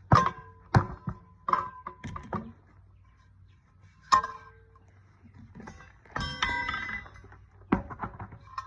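Steel tire bar knocking and prying against a steel trailer rim while working a stubborn tire bead off. There are sharp metallic clanks that ring briefly, about seven spread through, and a longer clatter of ringing metal a little past the middle.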